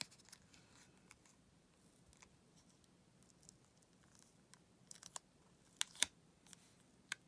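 Quiet handling of paper and a metal paper clip: a few faint scattered clicks and taps, the sharpest about six seconds in.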